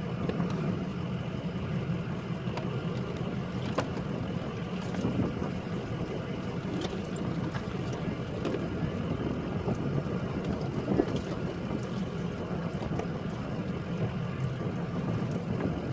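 Shuttle bus driving along a bumpy dirt road, heard from inside the cab: a steady engine and road rumble with scattered small rattles and knocks.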